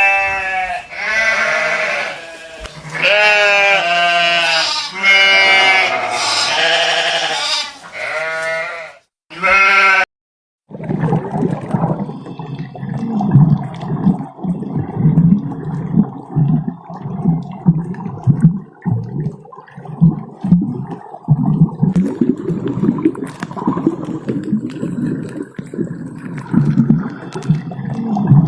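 Sheep bleating over and over, each bleat a wavering cry about a second long, for the first ten seconds or so. After a brief gap it gives way to a continuous low, gurgling rumble like water.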